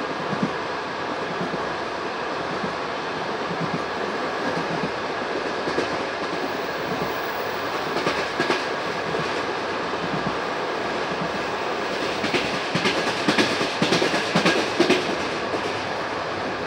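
Passenger train carriage running along the track with a steady rumble, its wheels clattering over rail joints in a quick run of loud knocks near the end.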